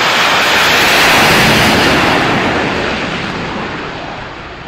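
Loud rushing jet-engine noise from a pair of Su-25 attack jets at takeoff power on their takeoff run. It is loudest about a second in, then fades as they pull away down the runway.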